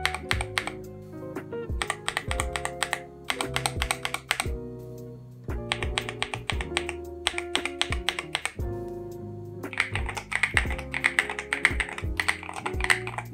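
Linear mechanical keyboard switches pressed in short bursts of rapid presses, one switch at a time: a stock Meki Studio Strawberry Shortcake switch, then a lubed Akko V3 Cream Yellow. From about ten seconds in, steady typing across a full keyboard takes over. Background music with sustained tones plays throughout.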